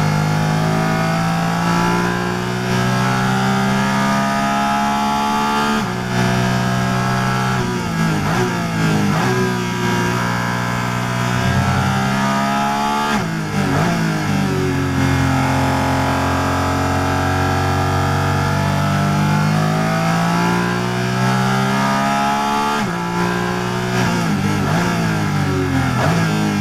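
Porsche Cayman GT4 RS Clubsport's flat-six racing engine heard from inside the cockpit, revving hard. The pitch climbs and then breaks off sharply at several gear changes, falls during braking and downshifts about halfway through, then rises again in one long pull.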